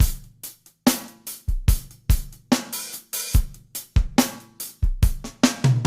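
Drum kit playing a steady beat of kick drum, snare and hi-hat as a song opens. Near the end a held bass note comes in under the drums.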